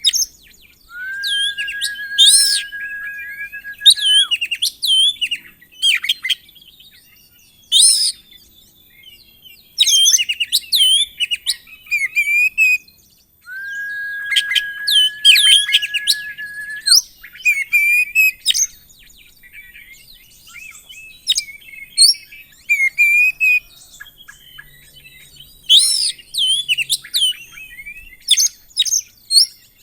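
Oriental magpie-robin (kacer) singing a loud, varied song of sharp whistles, chirps and fast trills, the full mimicry-laden song ('isian') that keepers use to set other kacer singing. Twice it holds a long, steady, lower whistle for about three seconds, near the start and about halfway through.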